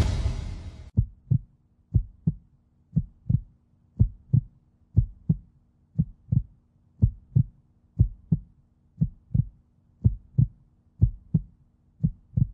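Heartbeat sound effect: pairs of low thumps, lub-dub, repeating about once a second, after a swell of noise that fades out in the first second.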